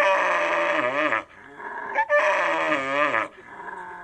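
Sheep bleating: two long, quavering bleats about a second apart, each dropping in pitch at the end.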